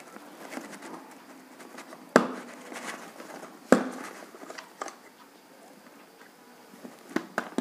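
Handling noise as neckband wireless earphones are lifted out of their packaging tray: light rustling, two sharp clicks about two and three and a half seconds in, and a few quicker clicks near the end.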